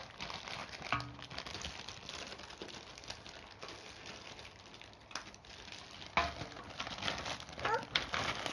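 Faint crinkling of plastic toy packaging and scattered light clicks as a new toy set is handled and unpacked.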